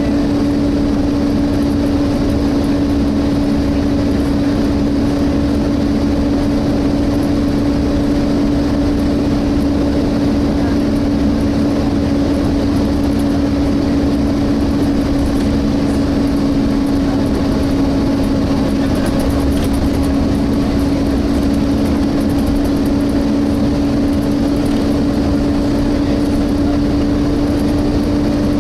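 Volvo B7TL double-decker bus's engine cooling fan running at a steady pitch, a hoover-like whine, over the bus's engine and road rumble as heard inside the passenger saloon.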